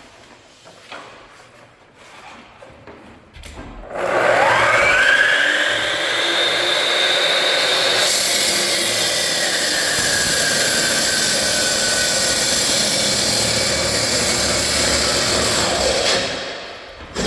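Electric saw starting about four seconds in, its motor whine rising as the blade spins up. From about eight seconds the blade is cutting, with a steady loud grinding hiss, until the saw winds down near the end.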